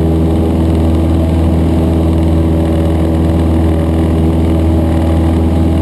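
Cessna 152's four-cylinder Lycoming O-235 engine and propeller running steadily at takeoff power as the plane lifts off and climbs, heard from inside the cockpit.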